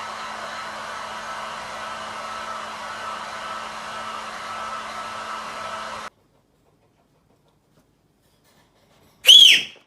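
Steady mechanical whirring with a low hum, cutting off suddenly about six seconds in. After a few seconds of silence comes one short, loud, high-pitched cry near the end.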